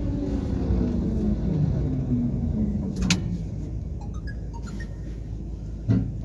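Tram's electric traction motors whining down in pitch as it slows, over a steady rumble from the running gear, heard from inside the car. A sharp clack comes about three seconds in and a low thump near the end.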